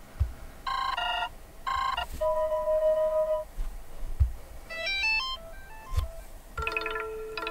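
Phone speaker playing short previews of several built-in ringtones one after another: a few electronic beeping notes, a held tone, a quick rising run of notes, then a sustained chord near the end. A few soft thumps fall between the tones.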